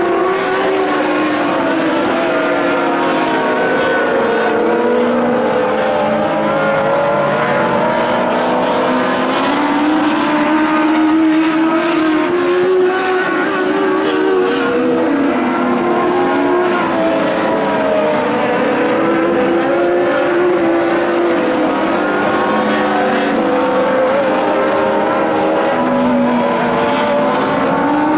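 Several dirt-track race cars' engines running hard around an oval, overlapping, their pitch rising and falling as they accelerate down the straights and lift into the turns.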